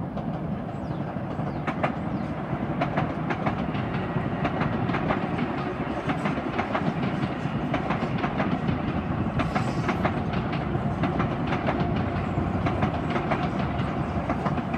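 Long Island Rail Road M7 electric multiple-unit train passing at speed. A steady rumble runs under many sharp clicks of the wheels over rail joints.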